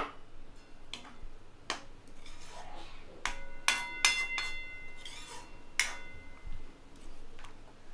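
Steel spoon stirring thick spinach gravy in a metal kadhai, scraping and knocking against the pan's side. Several ringing metallic clinks come between about three and six seconds in.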